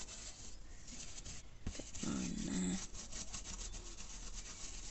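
Soft paintbrush rubbing and dabbing aluminium casting powder into a silicone mould, a dry scratchy rustle of bristles on rubber. A short low murmur a little over two seconds in.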